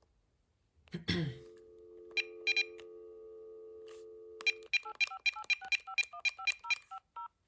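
VTech CS5121 cordless phone handset going off-hook with a click, then a steady dial tone with two short key beeps. The dial tone stops and about a dozen touch-tone (DTMF) digits follow in quick succession, each with a key beep, as a number is dialed.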